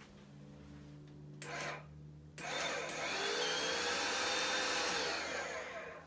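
Hoover PowerDash Pet carpet cleaner's motor switching on: a short burst about one and a half seconds in, then from about two and a half seconds a loud running noise with a whine that rises as it spins up and then holds, fading near the end. The machine, thought dead, does start.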